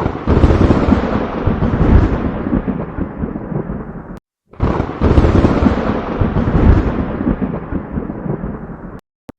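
Thor-style lightning-and-thunder sound effect played twice: each time a sudden crack opens into a heavy rolling rumble that fades over about four seconds, then cuts off abruptly into a moment of silence.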